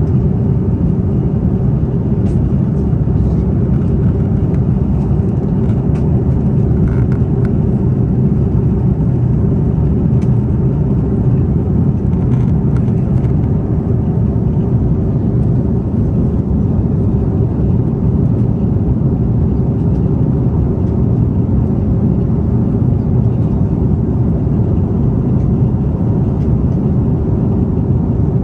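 Steady low drone of a jet airliner's cabin in flight: engine and airflow noise heard from a window seat, with a few faint clicks.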